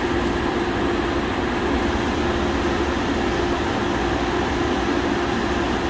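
MTR Tung Chung line CAF train running steadily, an even rumble with a steady hum.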